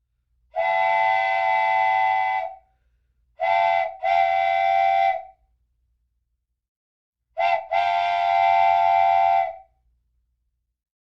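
A train whistle sounding a steady chord in separate blasts: a long blast, a short one and a slightly longer one, then a quick toot and another long blast.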